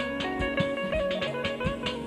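Live band music: electric guitar playing a melody with clarinet, over steady drum beats.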